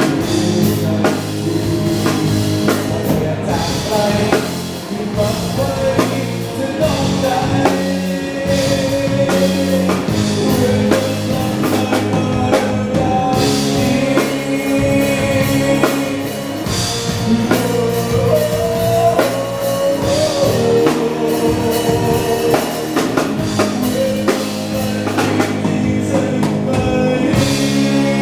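A band playing an upbeat song: a steady drum-kit beat under guitar and a singer's voice.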